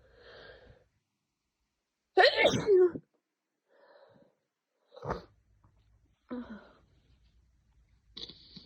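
A person's loud sneeze from a heavy head cold, about two seconds in, with a faint voiced breath before it, followed by a few shorter, softer breathy bursts.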